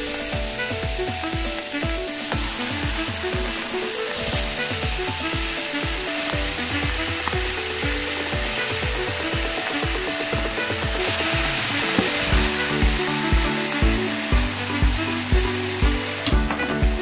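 Beef short ribs sizzling in a hot stainless steel pan, a steady hiss. Background music with an even beat plays over it and grows louder about three-quarters of the way through.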